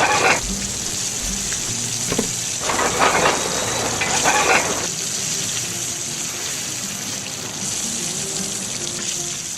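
Steady rushing water sound with three short, louder gushes in the first half, over faint background music notes.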